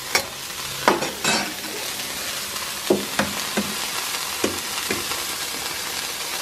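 Burger steak, onions and eggs sizzling on a stainless steel barbecue hotplate, with a steel spatula knocking and scraping against the plate several times. A couple of sharp knocks in the second half as another egg is cracked onto the plate.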